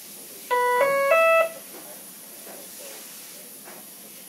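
Three short electronic tones, each a step higher in pitch than the last, played back to back over about a second. A faint steady hiss follows.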